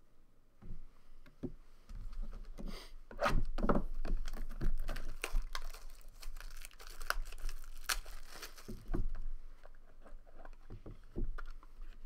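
Plastic wrapping being torn off a new box of trading cards and crinkled in the hands, a dense run of irregular crackles and snaps.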